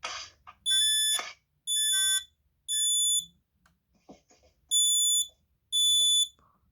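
A 2003 Kidde PI9000 smoke alarm sounding on test: loud, high-pitched beeps in the temporal-three pattern, three beeps of about half a second each, a pause, then three more.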